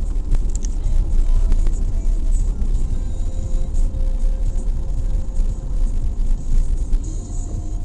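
Vehicle driving slowly over a gravel track, heard from inside the cabin: a steady low rumble of engine and tyres on loose stones, with occasional clicks and light rattles.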